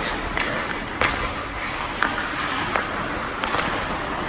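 Ice hockey play on a rink: skates scraping across the ice, with four sharp knocks of stick and puck spread over the few seconds.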